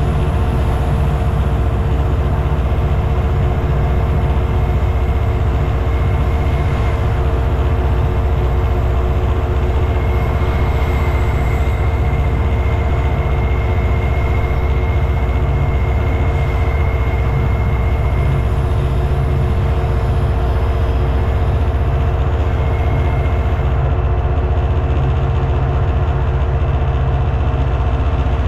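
Class 59 diesel locomotive's two-stroke EMD V16 engine running steadily under load while hauling a heavy freight train, heard from the cab: a deep, even drone with a steady hum. A faint high whine comes in for several seconds in the middle.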